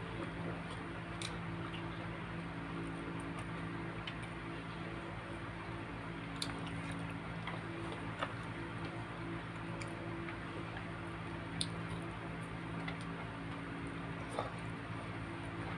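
Close-up mouth sounds of eating chicken and rice by hand: wet chewing and finger-sucking smacks, with a few small sharp clicks, over a steady low hum.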